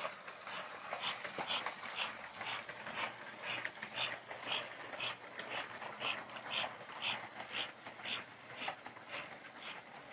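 American Flyer model steam locomotive chugging along with an even puff-puff, about two chuffs a second, over the light running rumble of the train on the track.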